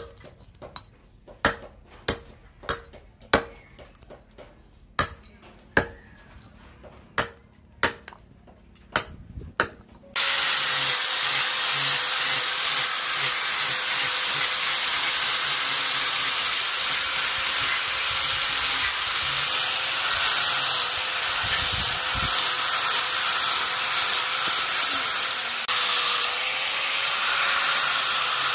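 About a dozen sharp hatchet blows chopping into a rosewood block, spaced irregularly. About ten seconds in, they give way suddenly to an electric angle grinder with a sanding disc running against the wood: a loud, steady hissing rush with a thin, steady hum.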